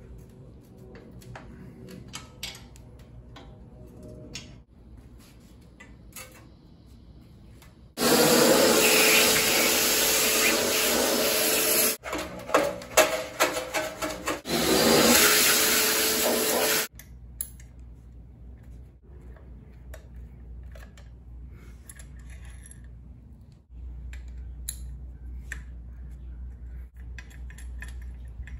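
Wrench and metal parts clicking and clinking as a Delta 37-290 jointer is taken apart. Midway comes a loud steady rushing noise with a faint hum, lasting about nine seconds, broken by a quick run of knocks and scrapes from a wooden stick scraped over the steel stand top. Quieter handling of the cast-iron parts follows.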